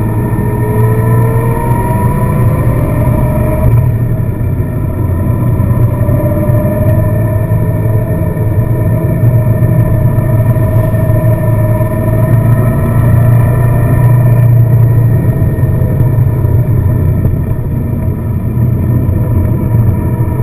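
A car's engine running under way, with steady low road rumble, its note rising in pitch in the first two seconds and again in the middle as it speeds up.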